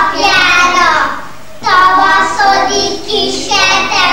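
A group of young children singing together in unison, breaking off briefly about a second in before carrying on.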